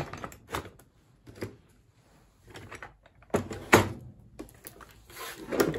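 Hand tools knocking and clattering as they are handled and set down in a toolbox: a few scattered knocks, the loudest about two-thirds of the way through, and a brief rustle near the end.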